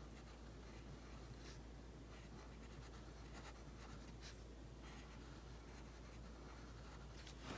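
Faint scratching of a pencil on paper in several short strokes, drawing small rounded shapes.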